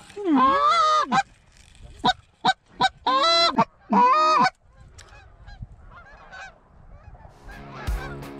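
Canada goose honks: a loud long honk that breaks from low to high, three short clucks, then two more loud honks in the first half. After a quieter gap, a fainter chorus of many overlapping goose honks begins near the end.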